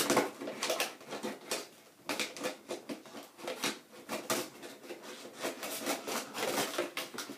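Toy packaging being opened by hand: an irregular string of rustles, crinkles and scrapes of card and plastic.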